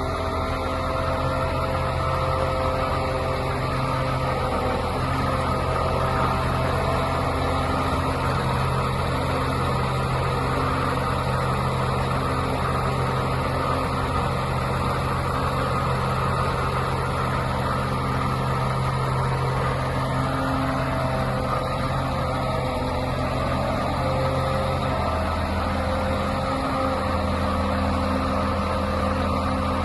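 Diesel engine of a Mercedes-Benz Actros truck-mounted concrete pump running steadily. One low hum in it drops away near the end.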